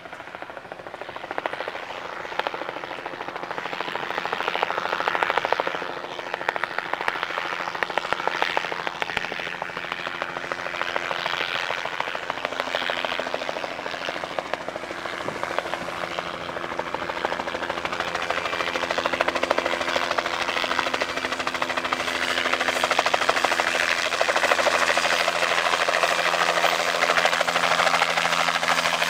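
Helicopter flying in and descending to a low hover, its rotor beat growing steadily louder as it closes in. A steady low engine hum joins in about halfway through and strengthens toward the end.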